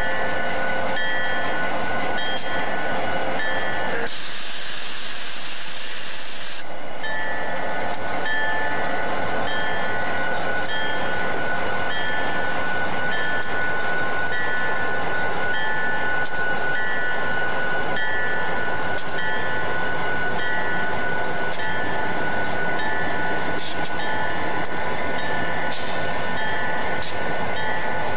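A string of diesel locomotives rolling past, engines running, with a locomotive bell ringing steadily about once a second. About four seconds in comes a loud burst of air hiss lasting a couple of seconds.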